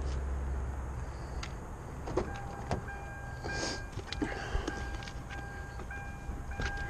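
Clicks and knocks of something being handled, then from about three seconds in an electronic beep tone that keeps breaking off and starting again.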